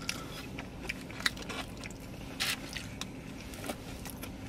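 Close-up eating sounds: biting and chewing into a quesadilla and fries, with scattered small crunches and clicks, and plastic forks scraping foam takeout containers. A sharp click comes just over a second in and a short rustling burst about halfway through.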